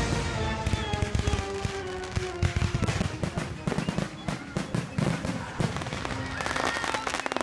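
Aerial fireworks bursting in a dense barrage, many bangs in quick succession, turning into a rapid run of crackles near the end.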